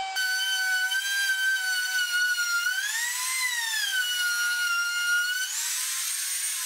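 Compact router cutting a slot along the edge of a phenolic-resin-coated plywood tabletop: a steady high-pitched whine. The pitch swells up and settles back about halfway through. Near the end the sound changes as the router comes out of the cut.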